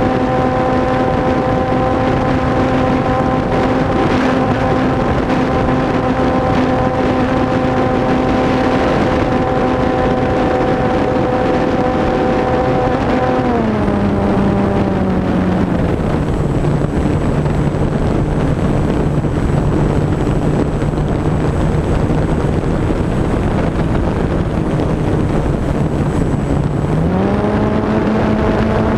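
Electric motor and spinning propeller of a HobbyZone Radian RC glider, heard close up from onboard, with a steady whine over wind rushing past the microphone. About halfway through the motor slows and its pitch steps down. Near the end it speeds up again.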